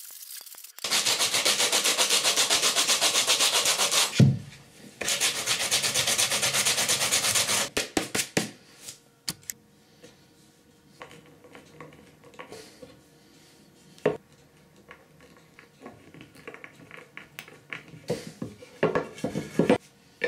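A wooden board being hand-sanded with a sanding block to prepare it for paint. There are two bouts of fast back-and-forth rubbing with a knock between them, then lighter scattered clicks and taps of small hardware being handled.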